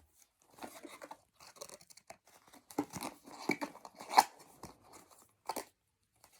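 Handling of a plastic 4x4 Rubik's cube and its cardboard box: a run of irregular short clicks and rasps, with a sharper click about four seconds in.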